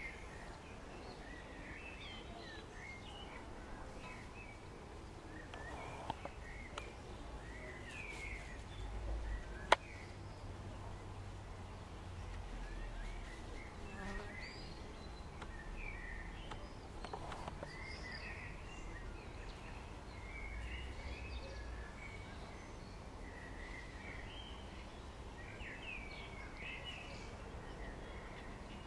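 Small birds chirping and twittering in short, varied calls throughout, over a low outdoor rumble. A single sharp click about ten seconds in, with a couple of fainter ticks a few seconds before it.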